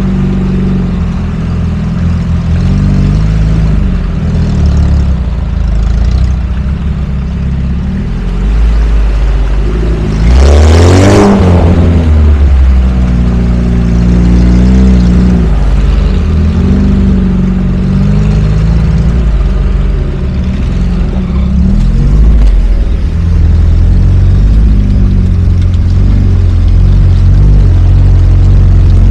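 Lada Niva engine running while driving off-road, its pitch rising and falling as the throttle changes. About a third of the way in there is a brief loud rushing noise, and the engine runs louder after it.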